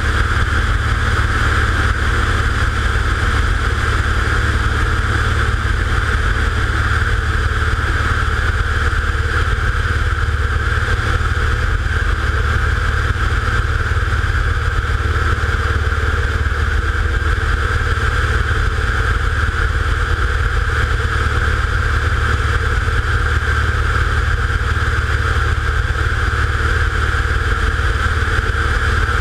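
Steady hum and whine of a camera drone's motors and propellers, picked up by the camera riding on it, with a low rumble of wind and vibration; it holds level without change.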